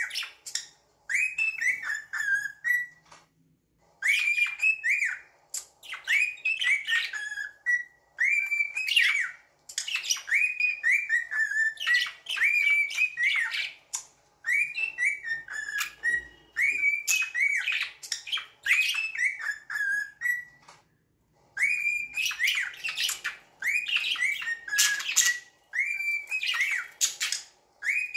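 Bird calling in repeated bouts of short chirps that fall in pitch, several notes to a bout, with short pauses between bouts.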